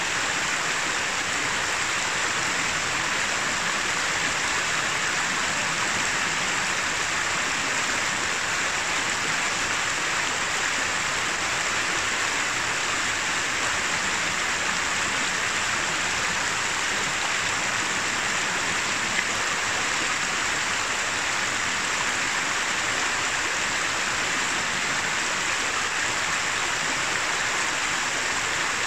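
Shallow mountain river running over stones: a steady, even rush of flowing water.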